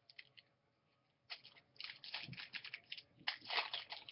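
Crinkling and tearing of a foil trading-card pack wrapper being opened by hand, starting about a second in and getting louder near the end.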